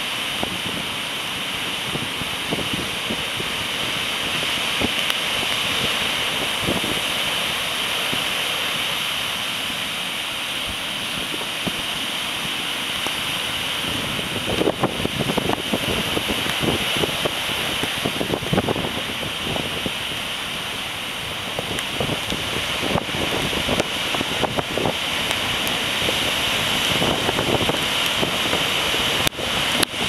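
Heavy typhoon surf breaking steadily along the shore under strong wind. Gusts buffet the microphone, far more often in the second half.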